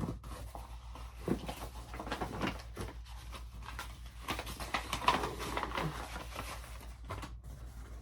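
Rustling and handling of clothing and packaging, with irregular soft crinkles and a few light knocks, over a steady low hum.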